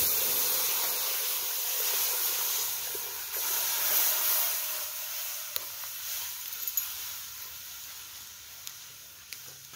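Coconut cream poured into a metal pot heated over a charcoal fire, hissing and sizzling as it hits the hot metal. The hiss starts suddenly, stays strong for four or five seconds, then fades gradually as the pour ends and the liquid settles.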